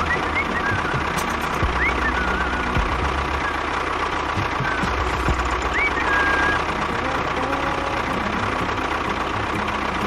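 Small engine running steadily with a rough, knocking rumble.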